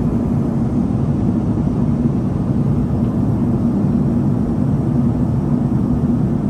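Steady rumble of an Airbus A380-800 airliner's engines and airflow, with a constant low hum.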